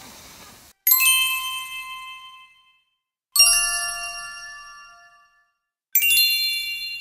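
A bright bell-like chime struck three times, about two and a half seconds apart, each strike ringing out and fading away.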